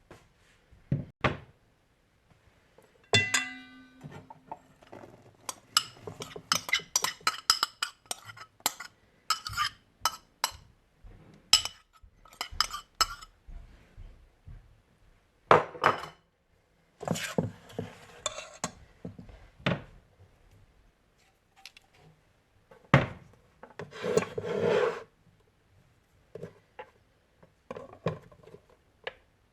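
Kitchen utensils clinking and knocking against bowls and dishes during food preparation, in many separate short strikes. One strike about three seconds in rings out briefly like metal.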